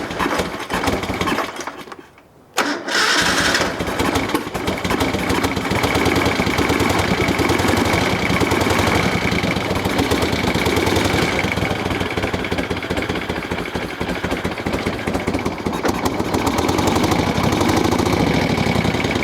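1973 Moto Guzzi Eldorado V-twin turned over briefly on the starter, a short pause, then firing up about three seconds in and running at a steady idle. It has Amal carburetors with no choke, primed with the tickler for the start.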